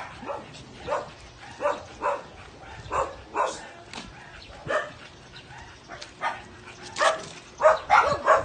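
Small dog barking, repeated short yaps about one or two a second, coming faster and louder near the end.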